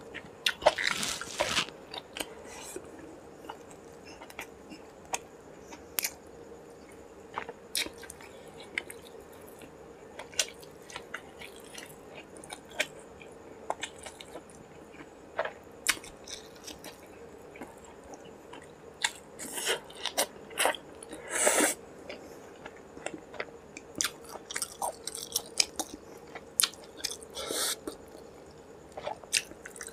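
Close-miked eating sounds of a man eating rice, curry and fried fish by hand: wet chewing with many short sharp mouth clicks and smacks, and a few longer, louder bursts, the loudest about two-thirds of the way through.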